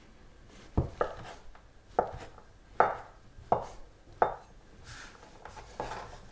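Chef's knife chopping a block of Comté cheese into small cubes on a wooden cutting board: about six sharp knocks of the blade on the board, at an uneven pace of roughly one a second.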